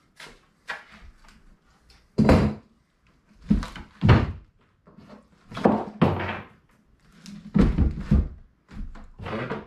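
Heavy wooden log rounds being handled and shifted on a wooden workbench: a series of separate dull thunks and knocks with pauses between, the loudest about two seconds in and around four seconds.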